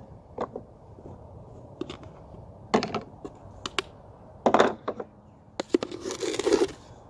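A large plastic canister is picked up and handled, giving a string of light clicks and knocks. About six seconds in there is a brief hissing rush as the granulated sugar inside slides while the canister is tipped.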